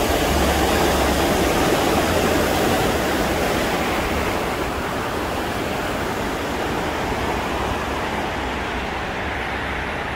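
Swollen river in fast flow, rushing water making a steady, dense noise that slowly fades.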